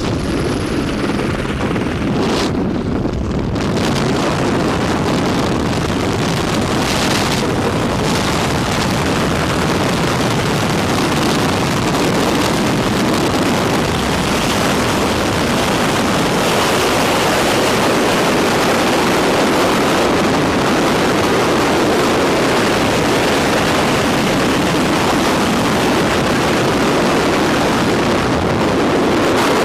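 Freefall wind rushing hard and steadily over a skydiving camera's microphone.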